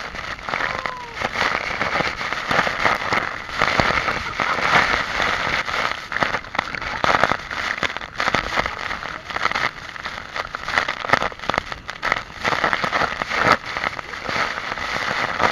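Waterfall water pouring and splashing, a dense crackling hiss broken by many irregular sharp splashes.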